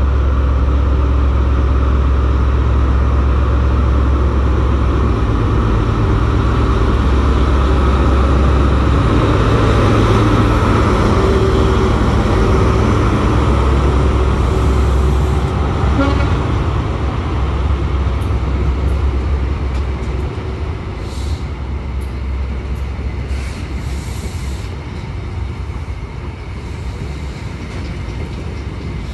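HST power car's MTU 16V4000 diesel engine under power, accelerating away from a standstill, its steady low drone fading after about twenty seconds as the coaches roll past. Short high squeals from the wheels come between about 21 and 25 seconds in.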